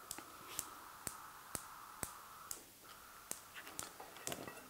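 Gas hob's electric spark igniter clicking steadily, about two clicks a second, as the burner is lit.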